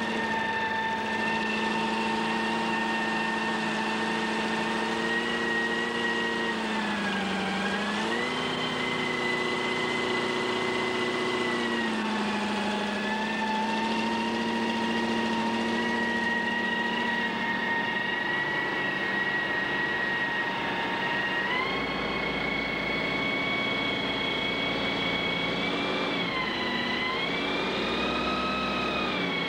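Big-block 454 Chevrolet V8 in a wooden drag boat, exhausting through Bassett headers and running hard at high, steady revs. Its pitch sags and recovers twice, steps up higher about two-thirds of the way through, then sags and climbs again near the end.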